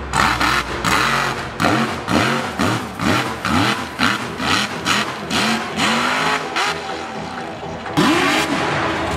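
Mega truck's supercharged engine revving hard, its pitch rising and falling over and over, about twice a second.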